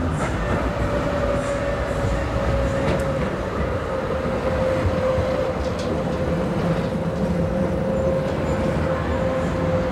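A TFS tram passing close by on its rails, running with a steady rumble and a single whine that drifts slowly lower in pitch.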